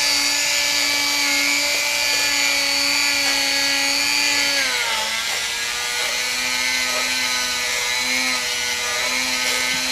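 Harbor Freight Dremel-type rotary tool running with a polishing bit on the painted spokes of a motorcycle wheel. It makes a steady whine whose pitch drops about five seconds in, then holds a little lower.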